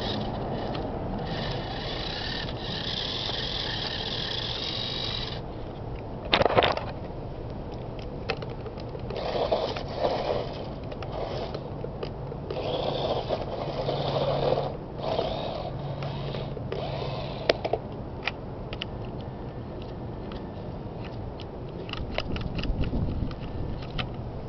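Miniature RC trucks' small electric motors and gear trains whining in short spurts, geared for speed rather than torque, as they crawl over gravelly dirt, with scraping and clicking of stones and a sharp knock about six seconds in.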